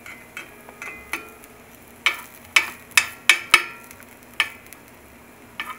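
Slotted metal spatula clinking and scraping against a cast-iron skillet as pancakes are turned: about ten sharp clinks with brief ringing, most of them between about two and four seconds in. Pancakes sizzle faintly in the pan underneath.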